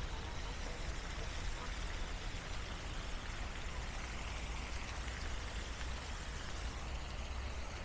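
Steady splashing hiss of a spray fountain falling into a pond, with a low rumble underneath.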